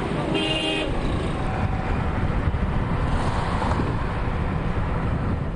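Road traffic rumble with wind buffeting the microphone, steady throughout. A brief pitched tone sounds over it about half a second in.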